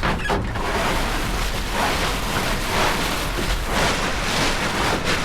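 Wind buffeting the microphone and water washing along the hull of a Flying Scot sailing dinghy under way, a rushing noise that surges and eases about once a second.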